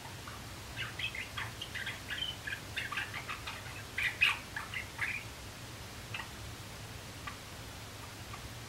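Young male Java sparrow practising its song: a quick run of short clicking and chipping notes for about four seconds, loudest about four seconds in, then a few scattered single notes.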